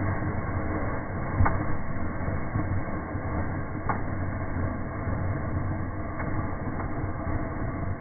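A nailed-down UFO firework burning in a fireplace: a steady rushing, sputtering burn with a low rumble and a few sharp pops, about a second and a half in, near four seconds, and twice more later on.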